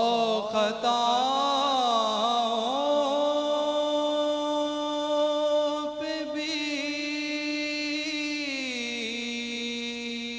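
A man singing an Urdu devotional hymn (hamd) solo, without accompaniment, drawing out one long held note. The note wavers with ornaments at first, then holds steady and slides down to a lower pitch about eight and a half seconds in.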